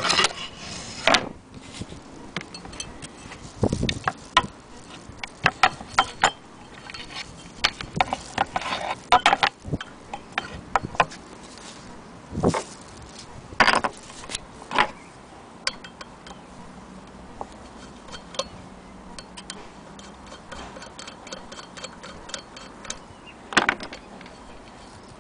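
Irregular clicks and knocks of an antique Willcox & Gibbs sewing machine's cast-iron hand crank and wooden case being handled, metal and wood knocking together at uneven intervals.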